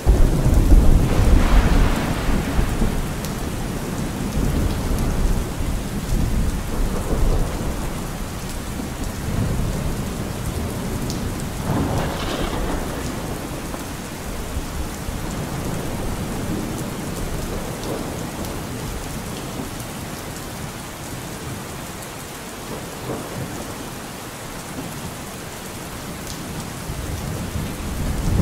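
Steady rain with rolls of thunder: one near the start, another about twelve seconds in, and more building near the end.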